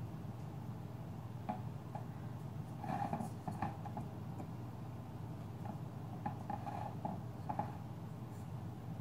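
Small light taps and clicks as strawberry slices are set into a metal bundt pan and the pan is handled, in a cluster about three seconds in and another about two-thirds through, over a steady low hum.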